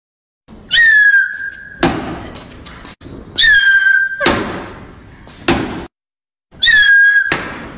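A comic cartoon sound effect played three times, about three seconds apart: a whistling tone held for about a second that breaks into a thump with a rattling, fading tail, laid over frogs leaping up a wall and dropping back.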